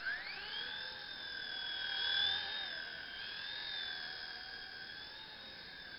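Small electric remote-control helicopter's motor and rotor spinning up into a high whine within the first second, then holding a steady, slightly wavering whine that peaks about two seconds in.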